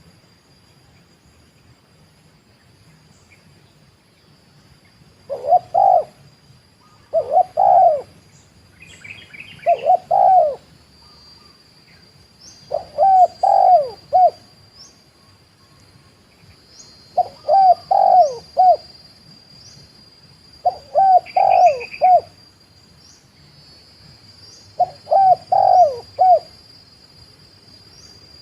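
Spotted dove cooing: about seven phrases of several notes each, starting about five seconds in and repeating every few seconds. A steady high-pitched whine runs underneath, with a few faint chirps from other small birds.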